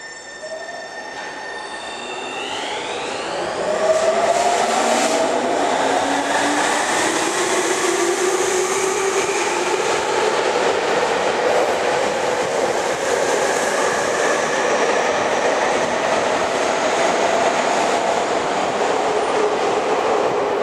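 Tobu 30000 series electric train pulling out of an underground station. Its motor whine rises in pitch as it accelerates. The running noise of wheels on rail swells about four seconds in and stays loud as the cars go by.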